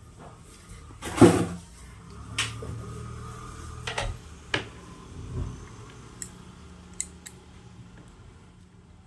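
Knocks and clicks of parts and tools being handled on a workbench while wires are connected to a circuit board, the loudest about a second in, over a faint steady low hum.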